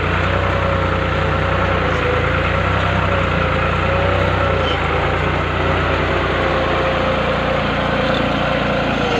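New Holland 3630 TX Super tractor's three-cylinder diesel engine running steadily under load while pulling a tine cultivator deep through the soil.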